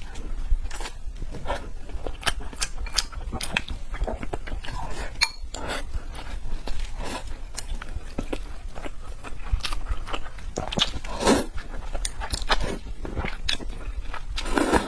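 A person chewing and biting red braised pork belly close to the microphone: a dense, irregular run of wet smacks and short clicks, with a few longer squelching chews.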